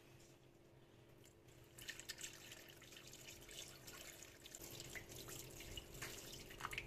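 Water poured from a jug into an enamel pot onto a frozen block of cornelian cherries and sugar: a faint, steady splashing and trickling that starts about two seconds in and keeps going.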